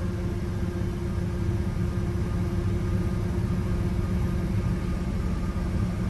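Combine harvester running, heard from inside the cab: a steady, low engine and machinery drone with a constant hum.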